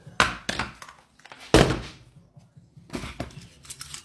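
A series of short, sharp knocks and thuds, the loudest about one and a half seconds in and several more close together near the end.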